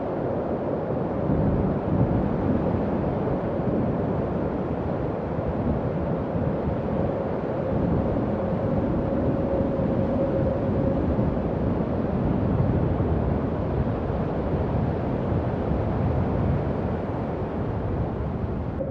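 Howling wind sound effect: a steady low rush of wind with a faint held whistling tone running through it.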